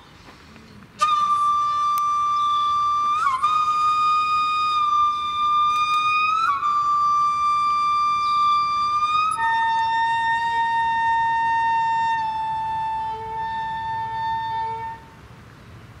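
Solo flute music: long held notes, each bending slightly into pitch as it starts. About a second in the first note begins, the pitch steps a little twice, and after about nine seconds it moves to a lower held note that fades out near the end.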